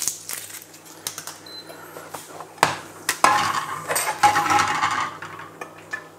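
Plastic butter dish opened with a couple of sharp clacks, then a knife cutting into a block of butter and scraping on the plastic dish.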